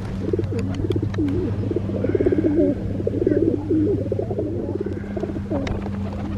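Pigeons cooing repeatedly at close range, over a steady low hum.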